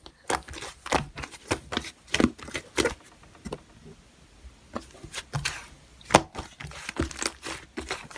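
Slime being squeezed and worked by hand, with irregular wet popping clicks, several a second, quieter for a moment in the middle.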